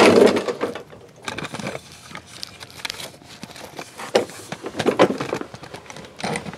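Handling noise: scattered light clicks, knocks and rustles, with a few sharper knocks in the second half, as the camera is picked up and moved.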